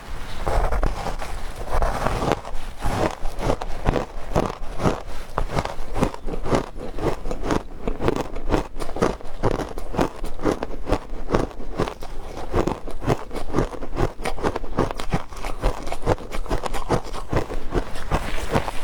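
Frozen matcha ice being chewed: a continuous run of crisp, irregular crunches, several a second.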